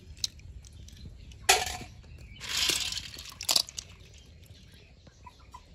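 Mukbang eating sounds: a few sharp clinks and knocks, the loudest about a second and a half in, with a short rushing, slurp-like noise about two and a half seconds in.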